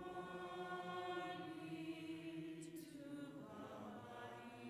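Congregation singing a short sung prayer response unaccompanied, in long held notes that move to a new chord about three seconds in.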